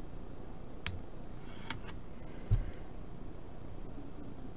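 A few light clicks and one dull low thump, handling noise as a fine tool works among the pins of a CPU socket, over a steady hiss with a faint high-pitched whine.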